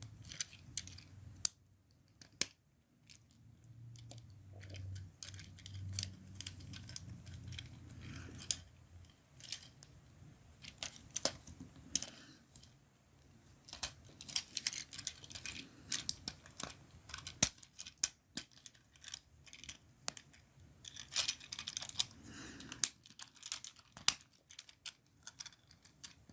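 Plastic Transformers action figure being handled and transformed: many light, irregular clicks and rattles of its plastic parts and joints being moved and snapped into place.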